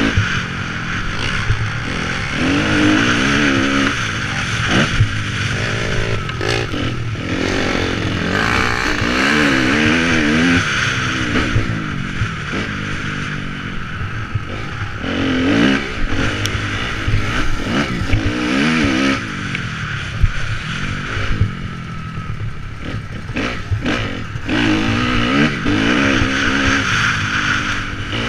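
Motocross bike engine heard from on board, revving up and dropping back again and again as the rider works through the gears around a dirt track, with a few sharp knocks from the bike along the way.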